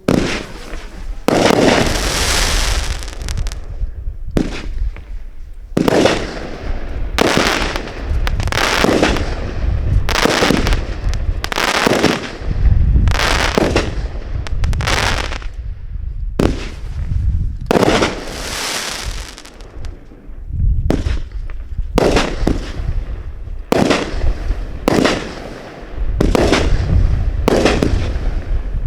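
Consumer firework finale cake firing a rapid barrage of aerial shells: sharp bursts come about one a second, irregularly, each trailing off in a fading hiss, over a continuous low rumble.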